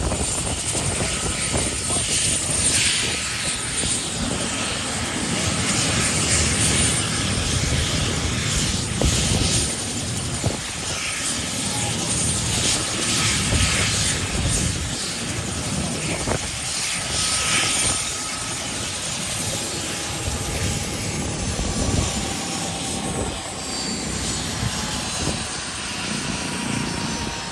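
Mi-17 helicopter's twin turbine engines and rotor running, a steady dense din. In the second half, a high turbine whine falls steadily in pitch.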